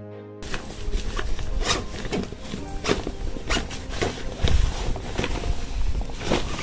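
Rustling, crackling and knocking of a backpack being packed in a hurry, over a low rumble, with faint background music under it.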